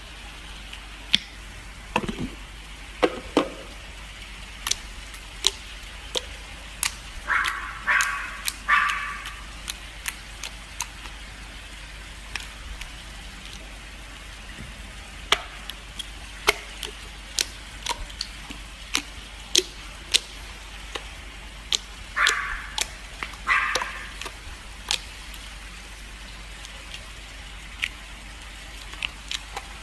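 Slime being worked by hand or with tools: irregular sharp clicks and pops, with two short squelching stretches, one about eight seconds in and one about twenty-two seconds in.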